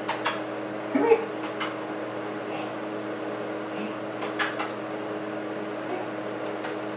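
Steady low machine hum in a small room, with a few sharp clicks and light metallic clinks from a small object handled near a metal food bowl on the floor. There are two clinks close together about four and a half seconds in.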